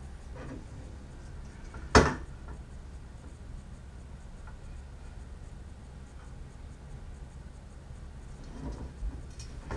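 Aluminium extrusion rails and a metal end plate of an X-Carve CNC kit being handled and fitted together: light rubbing and scraping, with one sharp metal knock about two seconds in as the parts meet.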